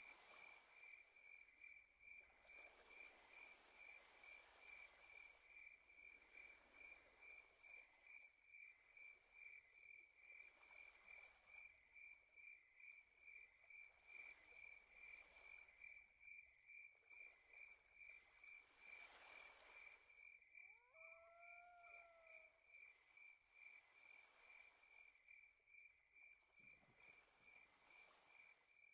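Faint crickets chirping: a steady, rapid, high pulsing trill. Soft swells of hiss come and go every couple of seconds, and a single short call with a slight downward glide sounds about 21 seconds in.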